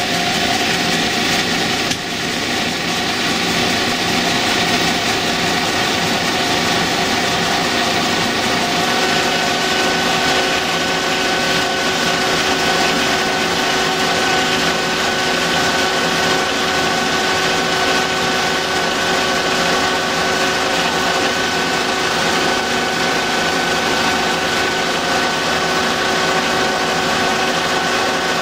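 Colchester metal lathe running under a dry roughing cut, a carbide-insert tool turning down a steel bar without coolant. Steady loud hiss with several held tones.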